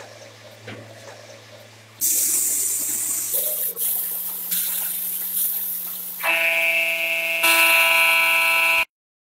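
Paint being sprayed onto hanging metal shock-absorber bodies: a loud steady hiss starts about two seconds in, after a quieter stretch of low hum and faint clicks. About six seconds in, a steady whistling tone joins the hiss, and the sound cuts off abruptly near the end.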